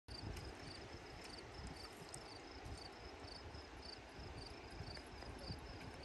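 Faint insect chirping, a high quick double note repeated about twice a second, over a low rumble of wind on the microphone.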